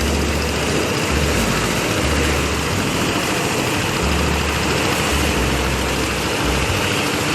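An engine running steadily under a constant loud rushing noise, with a low hum that swells and drops every second or so.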